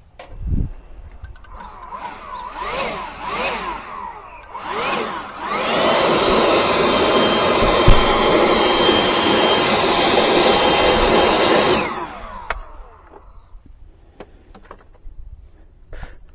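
Handheld power drill revving up and down in short bursts, then running steadily at full speed for about six seconds before cutting off.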